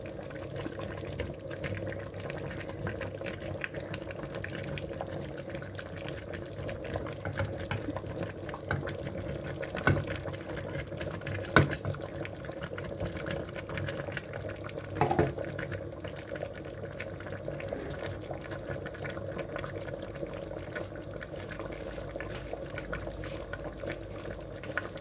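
Steady bubbling of the stew of browned lamb, onion and oil with fava beans in an aluminium pressure cooker on the burner, with three short knocks as carrot sticks are laid into the pot.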